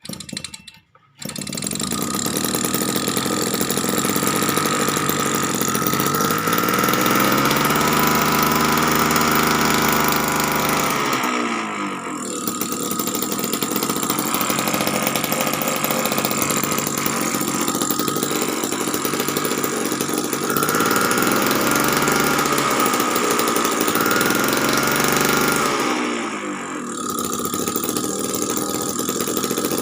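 Homemade mini two-stroke engine, converted from a refrigerator compressor, starting about a second in and then running loudly, its speed rising and falling, with two brief drops in speed.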